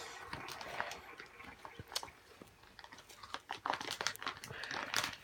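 A slow-rise foam strawberry squishy being squeezed and handled close to the microphone, giving soft, irregular crackling and rustling.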